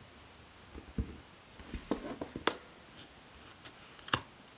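Tarot cards being handled on a cloth-covered table: soft sliding rustles of card on card, a soft thump about a second in, and a few sharp clicks of card edges, the loudest a little after four seconds.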